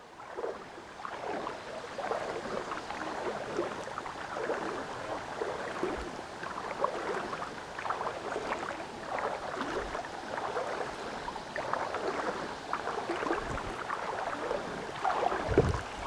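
Shallow stream water rippling and lapping steadily, full of small irregular splashes and trickles. A few low thumps come just before the end.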